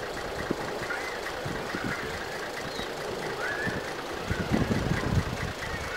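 Diesel engine of a Nambu Jūkan Railway KiHa 10 railbus idling with an uneven low rumble, a little louder for a moment just past the middle.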